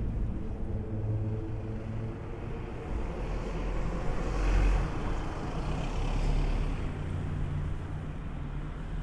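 Street traffic: a motor vehicle passes close by, its engine and tyre noise swelling to a peak about halfway through and then fading. A low engine hum from other traffic runs underneath.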